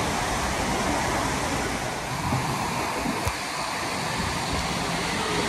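Steady rush of water falling and spraying from water-park play fountains and an artificial rock waterfall, with one short knock a little past halfway.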